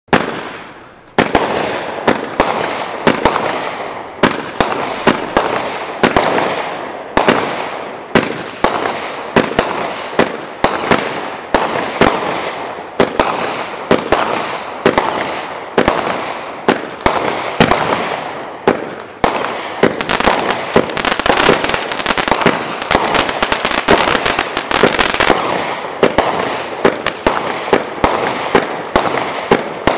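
Great Grizzly GG42 500-gram consumer firework cake firing its 42 shots in rapid succession, starting about a second in. Each shot is a sharp report, coming about one to two a second, with a hissing crackle of bursting stars between them that is thickest about two-thirds of the way through.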